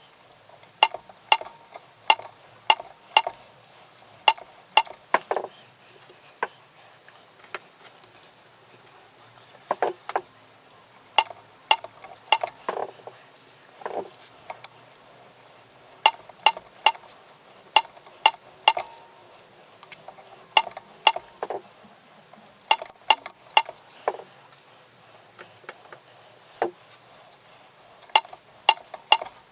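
Irregular sharp metallic clicks and clinks, often two or three in quick succession, with pauses of a second or more between clusters.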